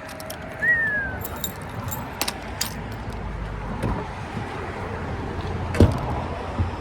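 Light metallic jangling and small clicks, like keys or tackle being handled, with a dull thump about six seconds in. A short falling whistle sounds under a second in.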